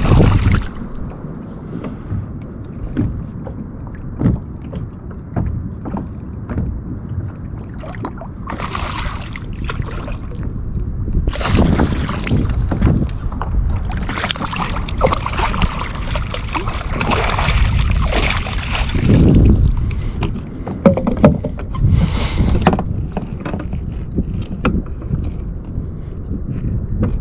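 Water splashing and sloshing against a fishing kayak, with knocks and rubbing on the hull. Louder, busier stretches of splashing and handling come through the middle.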